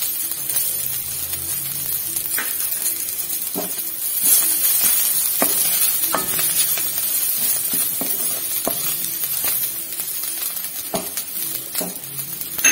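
Cumin, ginger, chillies, coriander leaves and turmeric sizzling in hot oil in a metal kadhai while a spoon stirs them, scraping and ticking against the pan a dozen or so times.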